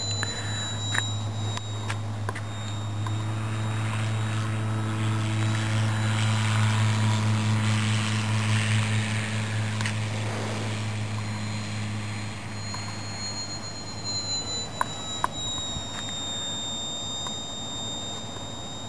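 Electric motor and propeller of a radio-controlled Beech Staggerwing model biplane in flight: a thin high motor whine with a propeller rush that swells as the plane passes close, loudest about eight seconds in, then drops in pitch and fades. A steady low hum runs underneath.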